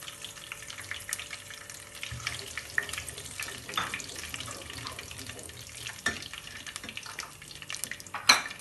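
Whole spices sizzling and crackling in hot oil in a non-stick pan, stirred with a wooden spoon, with many small pops. A sharp knock near the end.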